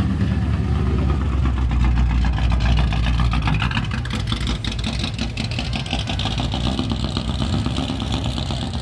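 Classic American muscle car's engine rumbling at low revs as it drives slowly past, with a deep, even burble that eases off as the car moves away.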